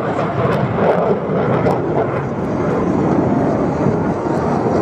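F-35A Lightning II's single F135 turbofan engine making a loud, steady jet noise as the fighter makes a high-speed pass at just below the speed of sound.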